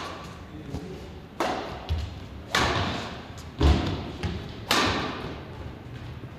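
Badminton rally: crisp racket strikes on the shuttlecock every one to two seconds, three sharp ones that echo round a large hall, with a heavy low thud about halfway through and lighter knocks of footwork in between.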